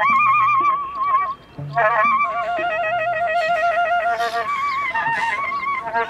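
Curved soprano saxophone playing a slow melody with a wide vibrato and long held notes, with a short break about a second and a half in.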